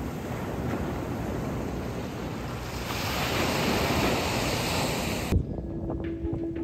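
Ocean surf with wind on the microphone, the wash growing louder about three seconds in. It cuts off abruptly about five seconds in, and background music begins.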